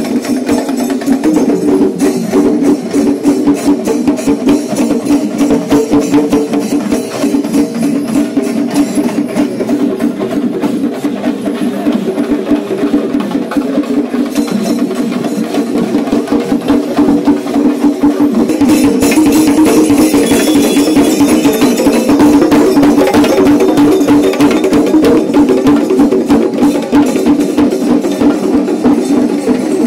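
Traditional Kerala temple procession music: a percussion ensemble beating rapid, dense drum strokes over a steady pitched drone. It grows louder and brighter a little past halfway.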